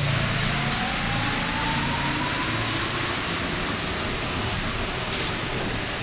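MP73 rubber-tyred Paris Métro train running, with a rising whine from its motors climbing in pitch over the first few seconds and then levelling off and fading into the steady running noise, as the train picks up speed.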